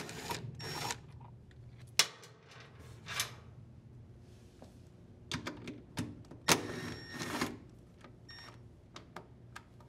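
A cordless power screwdriver whirs in several short runs as it backs out the screws of a washer's plastic belt cover, with sharp clicks and taps of the driver bit and screws between the runs.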